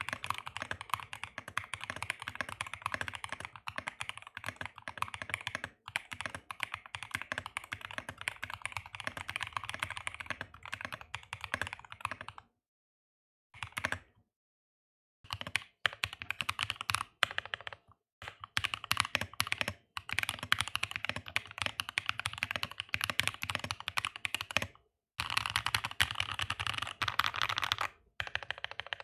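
Fast, continuous typing on an aluminium NK65 mechanical keyboard with factory-lubed linear switches, an FR4 plate and PBT keycaps. The keystrokes run in a dense stream, stopping briefly twice a little before halfway and once more near the end.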